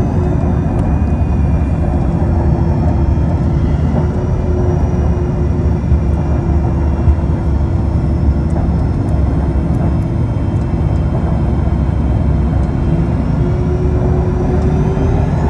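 Cabin noise inside a Pilatus PC-24 rolling on the runway: a steady low rumble of wheels and airflow under the whine of its Williams FJ44 turbofans, which holds one pitch and rises slightly near the end.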